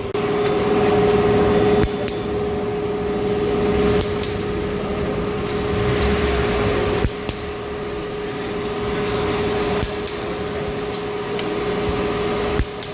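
A steady machine hum with a few sharp clicks and knocks scattered through it.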